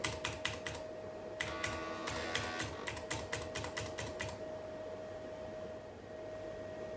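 Keys on the Elonex LT386 laptop's built-in keyboard pressed rapidly, several a second, for about four seconds and then stopping; keys being tried at boot to get into BIOS setup. A steady thin whine runs underneath.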